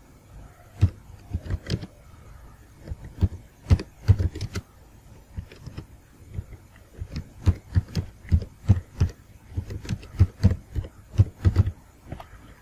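Typing on a computer keyboard: a run of uneven, dull key clicks a few times a second, stopping shortly before the end.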